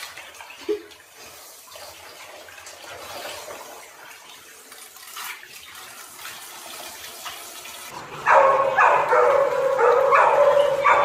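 Handheld shower head spraying water over a cat's fur, a soft steady hiss. About eight seconds in it gives way to louder dog barking and yipping, several calls a second.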